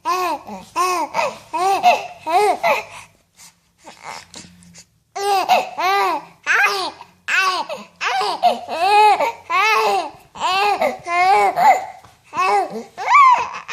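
A 10-week-old baby cooing and babbling: a run of short, high vocal sounds, each rising and falling in pitch, with a pause of about two seconds a few seconds in.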